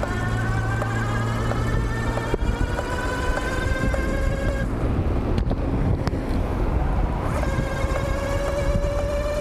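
48V 1000W mid-drive electric bike motor whining under full power as the bike accelerates, the whine rising in pitch. It dips slightly in pitch about two seconds in, drops away for a couple of seconds mid-way, then comes back, still rising. Wind rumbles on the microphone throughout.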